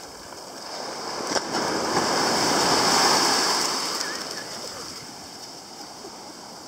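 A small sea wave washing up the sand as foaming surf: its rush swells to a peak about three seconds in, then fades as the water runs out.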